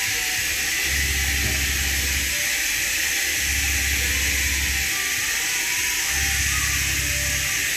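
Steady hiss of engine-bay cleaner being misted from a pump spray bottle over the engine compartment. Under it, a low hum switches on and off three times, each time for about a second and a half.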